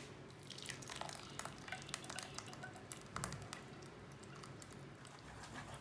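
Faint light clicks and scrapes of a steel mesh strainer against a nonstick pan as tomato purée is poured through it, busiest in the first half.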